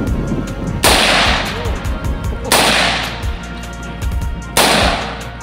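Three single shots from an AR-15 rifle in 5.56, about a second and a half to two seconds apart. Each crack is followed by an echo that dies away over about a second.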